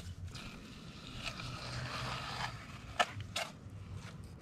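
Kitchen knife slicing through a raw fish fillet on a plastic cutting board: a scratchy rasp for about two seconds, then two sharp taps of the blade on the board about three seconds in.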